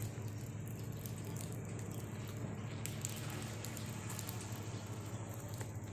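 A motor vehicle engine running steadily, a low hum with a fast even pulse, under a light hiss; it stops near the end.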